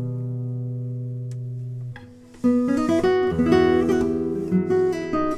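Classical nylon-string guitar played solo. A held low chord rings and fades for about two seconds, then after a brief pause fingerpicked playing resumes with quick notes over bass notes.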